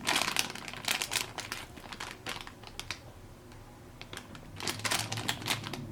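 Plastic packaging crinkling in short bursts as it is handled, busiest at the start and again near the end with a quieter stretch between.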